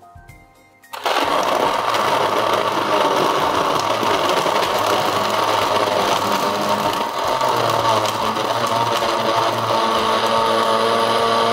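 Electric countertop blender switched on about a second in and running loud and steady, blending a coconut-milk and mango drink with lots of ice cubes.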